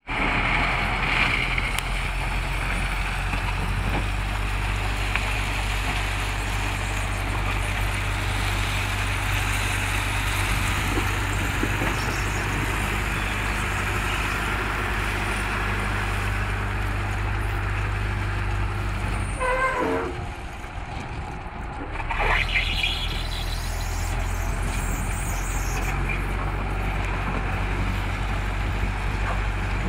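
Caterpillar 416B backhoe loader's diesel engine running steadily under load while its front bucket pushes and spills railway ballast stone. About two-thirds in, the engine note drops for a couple of seconds, with a brief squeal, then picks up again.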